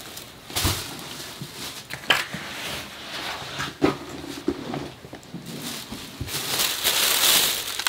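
Handling noise: a few knocks and bumps as a backpack is taken off, then a thin plastic shopping bag rustling and crinkling, loudest for the last second and a half.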